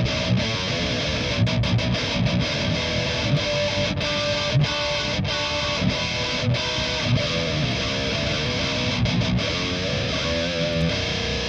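Heavily distorted high-gain electric guitar playing a metal riff, with chugging low notes broken by short rhythmic stops.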